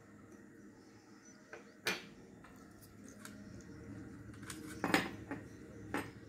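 A few small clicks and clinks from handling a spring-type fluorescent tube holder, its metal coil spring and the wires being threaded through it; the sharpest come about two seconds and five seconds in, with another near the end.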